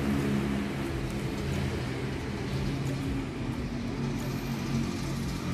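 A machine running nearby: a steady low drone that keeps an even pitch throughout.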